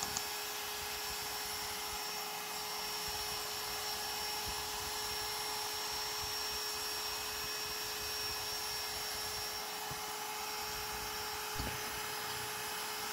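A CNC trim router runs steadily while it cuts a circle through plywood, and a shop-vacuum nozzle held at the cut sucks up the chips. Together they make an even hiss with a steady whine. There is a small tap near the end.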